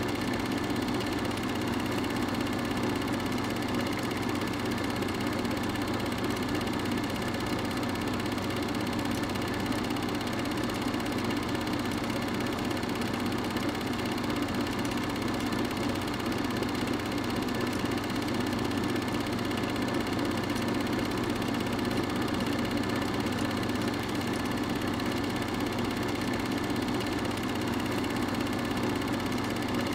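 Steady mechanical whir and hum that never changes, typical of an 8mm film projector running while silent home-movie film is transferred.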